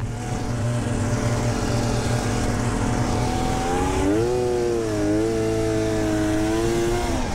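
1993 Polaris Indy XLT 580 snowmobile's two-stroke engine running steadily, its pitch rising about four seconds in and then holding at a higher speed; the sound cuts off abruptly just before the end.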